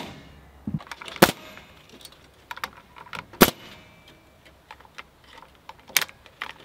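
Pneumatic coil roofing nailer firing nails to fasten metal lath to log walls: three sharp shots about two seconds apart, with light metallic clicking and rattling between them.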